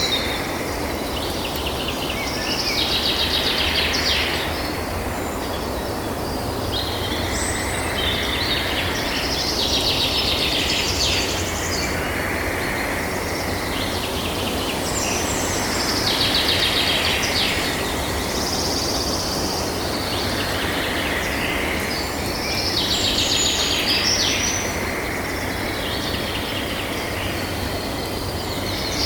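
Night nature ambience: bouts of high, rapidly pulsed chirping come about every six or seven seconds over a steady low background rumble and hiss.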